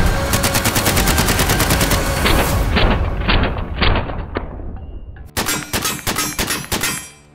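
Suppressed RM277 bullpup rifle firing 6.8×51mm polymer-cased ammunition: a long rapid full-auto burst, then a string of single shots a few tenths of a second apart that grow fainter, then another rapid burst about five seconds in.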